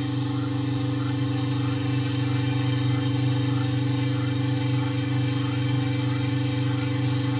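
Geared electric stirrer motor of a pot still running steadily at its top speed of 100 rpm, a steady hum. It is driving a 30 cm flat-iron paddle through a full pot of water.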